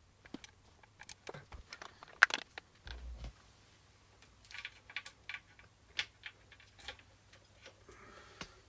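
Irregular small clicks and taps, like objects being handled or keys pressed, with a sharp click a little after two seconds in and a short low thump about three seconds in.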